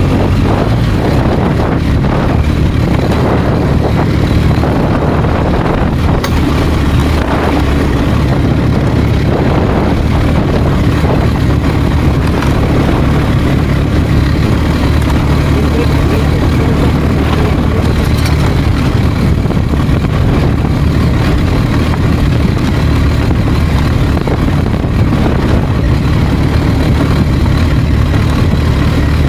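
A BMW R1250GS boxer-twin motorcycle being ridden, its engine running steadily along with road noise.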